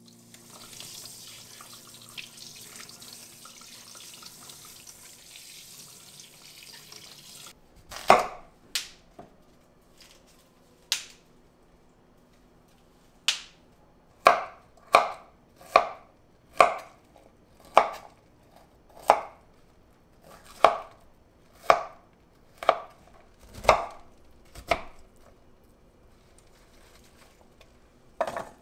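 Tap water running for the first seven seconds or so, then a kitchen knife chopping broccoli on a wooden cutting board: about sixteen sharp knocks, most of them roughly a second apart.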